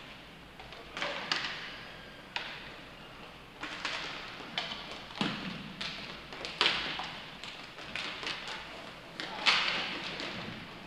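Inline hockey play: irregular sharp clacks and knocks of sticks, puck and boards, with a few short scrapes, the loudest hit near the end.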